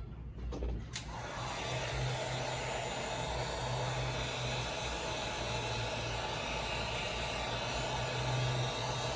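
A heat gun starts about a second in, after a click, and then blows steadily with a motor hum. It is warming the phone to soften the battery adhesive.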